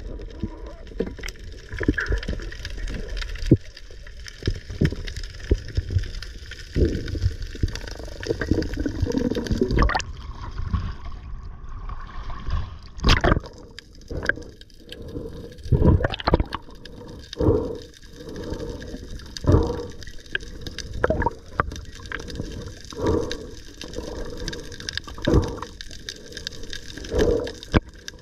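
Muffled underwater noise of moving water, heard through a diver's camera housing. There is a sharp click at the very start, and from about halfway there are dull thumps every second or two as the diver swims.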